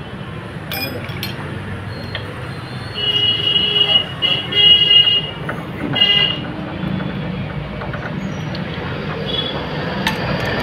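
A vehicle horn tooting three times, two longer toots and a short one, over steady traffic noise, with a couple of sharp metal clicks from spanner work on the engine about a second in.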